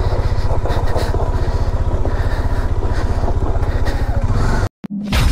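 Single-cylinder engine of a Royal Enfield Hunter 350 motorcycle running at low revs with a steady, even exhaust pulse while riding slowly over rough ground. The sound cuts off abruptly near the end.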